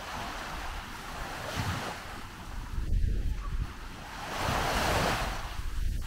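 Small waves washing up and receding on a sandy beach, one wash swelling and fading about four to five seconds in. Wind gusts buffet the microphone throughout.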